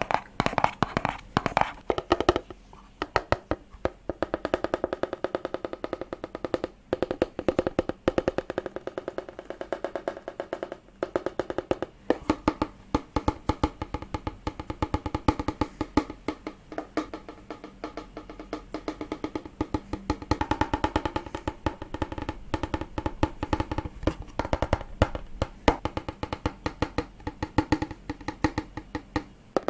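ASMR tapping: quick, crisp taps on hard objects in dense runs of several a second, each run ringing with a pitched tone.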